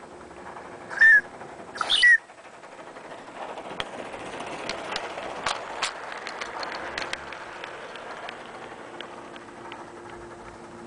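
Two short toots on the steam whistle of a 16mm-scale live-steam De Winton vertical-boiler locomotive. The loco's soft exhaust hiss and a run of quick wheel clicks on the rails then build as it passes close by, and fade away.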